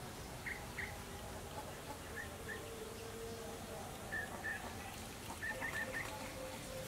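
Small birds chirping in short, high calls, often in pairs, every second or two, over a steady low background hiss.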